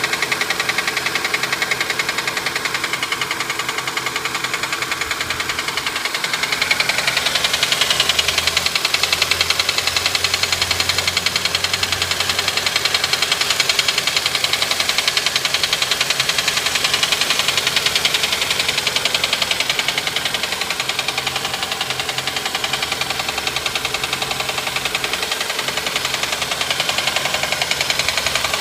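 2006 Honda Accord engine running with a fast, even tapping or knocking from the engine that the owner cannot identify; it grows a little louder several seconds in.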